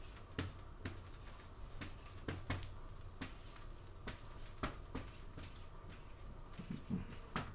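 Marker pen writing on a paper flipchart pad: faint, irregular short strokes and taps as the letters are drawn.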